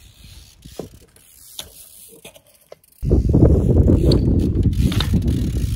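BMX bike ridden close to the microphone, its rear driver clicking in a rapid ratchet as it coasts. Light scattered clicks come first, then a loud, rough rattle of tyres and ratchet starts suddenly about three seconds in.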